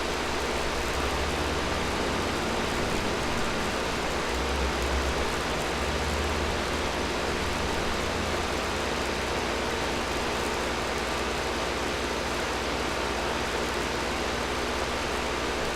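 Air conditioner running steadily: an even rush of blowing air with a low hum underneath, the hum a little stronger in the first half.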